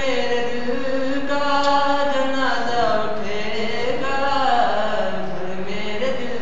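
A single voice singing a slow melody of long held notes that bend and slide up and down.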